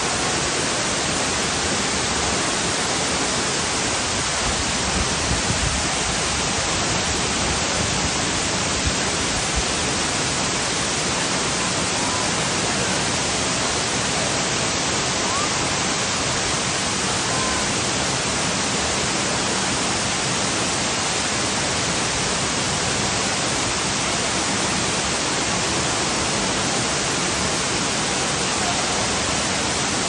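Waterfall plunging into its pool: a loud, steady rush of falling water with no let-up.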